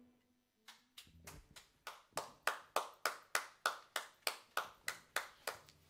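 The last electric-guitar note dies away, then slow, even hand clapping: about eighteen claps at roughly three a second, growing louder and then fading.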